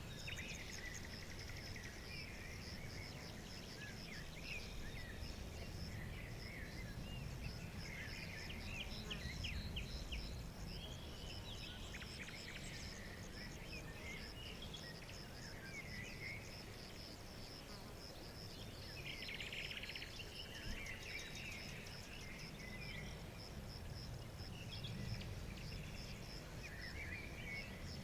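Songbirds chirping and warbling in short scattered phrases over a steady, fast-pulsing insect trill, with a low background rumble.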